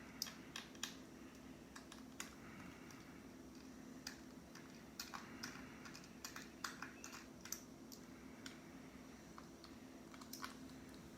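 Faint, irregular small clicks and taps of a Kindle e-reader's parts and screws being handled during disassembly, over a steady low hum.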